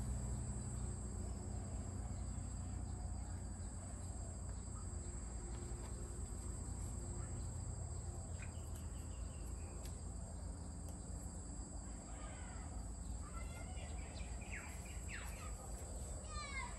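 Steady high-pitched insect drone, with birds chirping in short calls from about halfway through, over a low background rumble.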